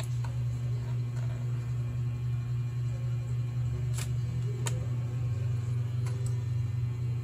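Steady low hum with a few sharp clicks, two about four and five seconds in and a fainter one near six, as a 2.5-inch laptop hard drive is lifted out of its bay and unplugged from its connector.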